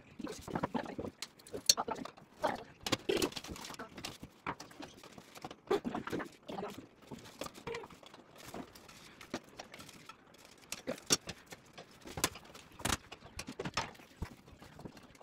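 Irregular knocks, taps and clicks of a metal-framed desk with a wooden top being handled and assembled, with some low voices in between.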